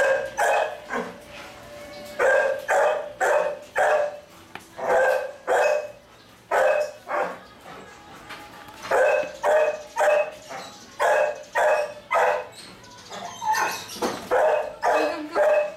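Belgian Shepherd puppies barking: many short, sharp barks of much the same pitch, in quick runs of three to five with brief pauses between.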